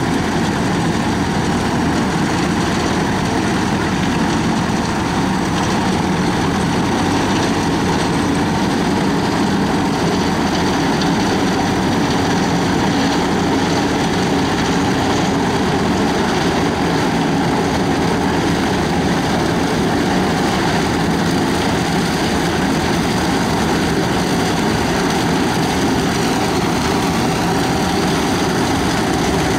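A tractor engine running steadily and loudly, without pauses or changes in speed.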